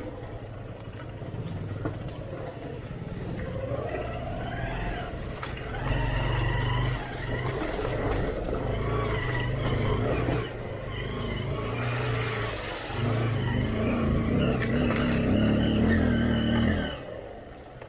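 Motorcycle engine running on a rough off-road track, throttled up and eased off in stretches, with a stronger, higher rev from about two-thirds of the way in that drops away about a second before the end.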